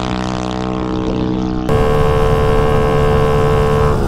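A 250cc dirt-bike engine in a Motovox mini bike running steadily at high revs near top speed. It is heard from the roadside at first. About two seconds in it switches to the onboard sound: a steady engine note under wind rush.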